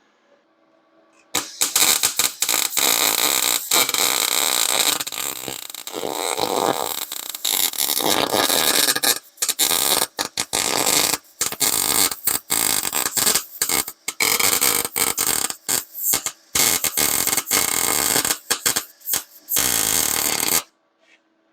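Wire-feed welder's arc crackling and sizzling as it lays a bead on the bed frame's thin steel center support. It starts about a second and a half in, breaks off and restarts repeatedly in the second half as the weld is run in short stitches, and stops about a second before the end.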